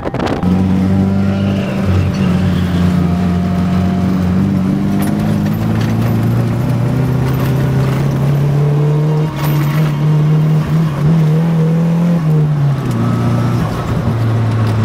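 Nissan 240SX (S13) drift car's engine heard from inside the cabin, held at fairly steady revs with its pitch slowly climbing. It drops in pitch about twelve seconds in as the revs fall.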